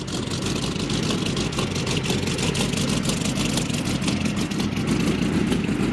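Packard 1M-1242 V-12 marine racing engine, modified to 723 cubic inches with a single-stage supercharger, running steadily on its test stand through open exhaust pipes: a fast, even train of exhaust pulses with no change in speed.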